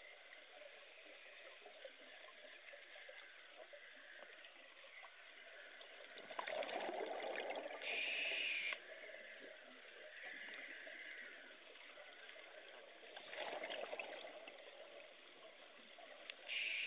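Scuba diver breathing through a regulator underwater: a short hiss comes about every eight seconds, and between the hisses come longer gurgling rushes of exhaled bubbles.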